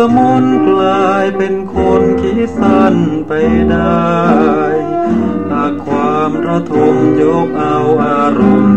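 Thai popular song with a male singer over band accompaniment, played from a mono vinyl record through a Clement mono cartridge.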